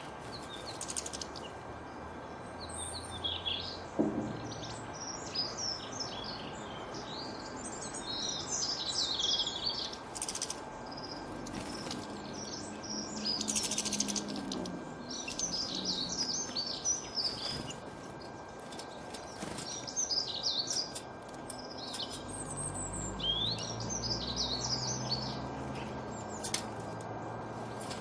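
A kutilang banteng, a bulbul, singing: bouts of quick, chirpy whistled phrases that come again every second or two, with a few sharp clicks in between.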